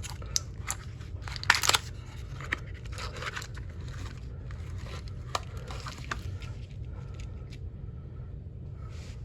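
A cardboard box of 9mm ammunition being handled and opened: a run of clicks, scrapes and crinkling, loudest about one and a half seconds in, then dying down to lighter handling after about six seconds.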